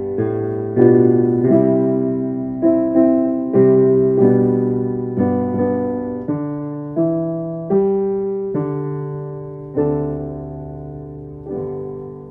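Slow solo piano music: chords struck one after another, each left to ring and fade, with the last one held and dying away near the end.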